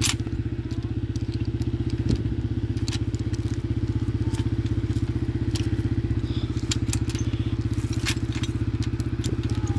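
ATV engine idling steadily, with scattered light clinks and scrapes of a steel chain and grab hook being handled.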